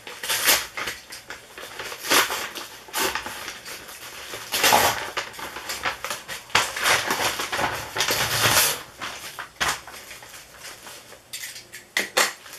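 Scissors snipping and working through a brown paper mailer, with the paper rustling and crinkling in repeated bursts as the package is cut open.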